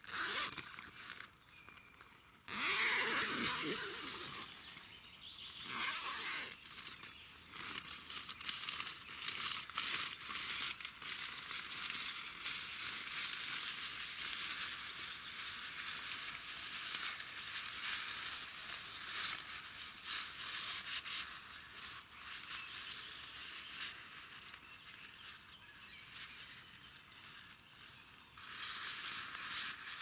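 Tent fabric rustling and crinkling as the door panel is handled and pulled back. The loudest rustle comes about two and a half seconds in.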